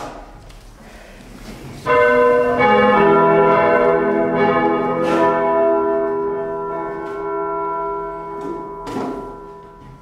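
Church bell rung by hand from a rope. The first strokes arrive about two seconds in, a few in quick succession, each ringing on and overlapping the last. Further strokes follow, and the ringing slowly fades towards the end.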